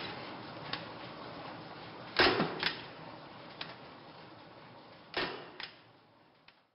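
A handful of sharp clicks and knocks over a faint hiss. The loudest come about two seconds in and about five seconds in, each followed by a smaller one, and the hiss fades away near the end.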